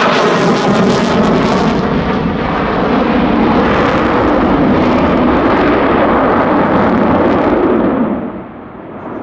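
F-16 Fighting Falcon jet engine passing overhead: a loud, crackling rumble with a sweeping, phasing tone in the first couple of seconds. It drops off noticeably about eight seconds in as the jet moves away.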